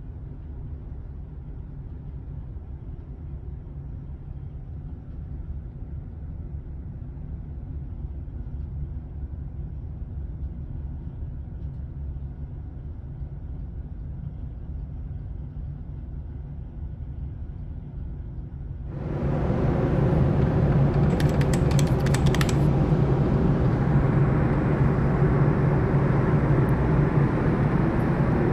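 Steady low rumble and hum of a car ferry's engines, heard inside a passenger cabin where the vibration makes a water bottle tremble. About two-thirds of the way in it gives way to louder wind on the microphone and ship noise out on the open deck.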